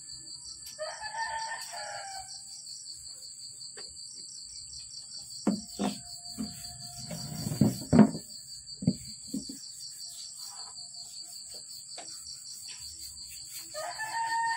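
A rooster crowing twice, once about a second in and again near the end, over a steady chorus of chirping insects. Between the crows come a few knocks and bumps, the loudest about eight seconds in, as a hand handles the heavy giant-clam shell.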